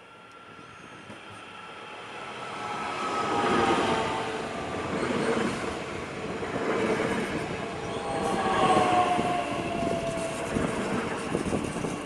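Bombardier Talent 2 (class 442) electric multiple unit pulling into the station: its running noise builds as it approaches and passes close, slowing. Whining tones slide down in pitch as it brakes.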